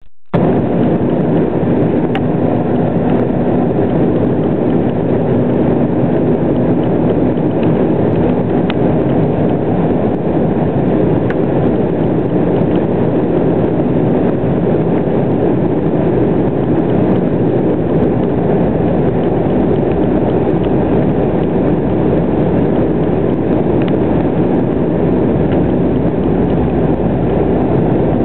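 Steady engine and airflow noise in the cabin of an Embraer ERJ-195 airliner descending on approach to land, with a faint low hum that fades about a third of the way through.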